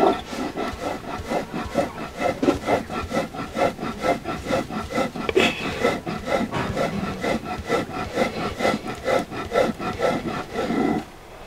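Stone-on-stone grinding on an Andean batán: the heavy upper stone is rocked over toasted cañihua seeds on the flat stone slab, giving a quick, steady rhythm of gritty scraping strokes, several a second, that stops near the end once the grain is ground to flour.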